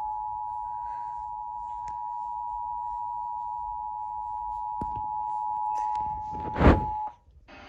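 Emergency Alert System two-tone attention signal: two steady tones sounding together, cutting off about seven seconds in. A loud thump comes just before the tones stop, with a couple of faint clicks earlier. A low hum starts at the very end.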